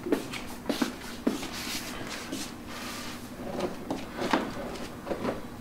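Scattered clicks, light knocks and rustles of a person moving about and settling close to the microphone, over a faint steady hum.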